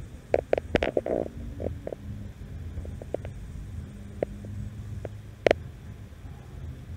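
Low rumbling handling noise on a handheld recording, with a quick run of clicks and knocks within the first second or so, a few faint clicks later, and one sharp click, the loudest sound, about five and a half seconds in.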